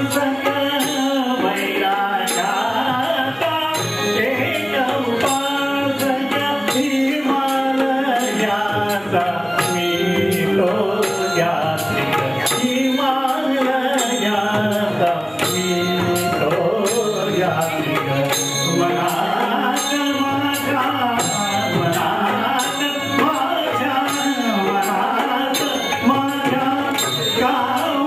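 A man singing a song into a microphone over musical accompaniment with a steady drum beat.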